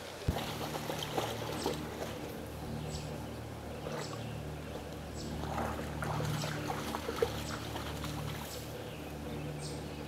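A steady low motor hum starts just after the beginning, with scattered short, light ticks over it.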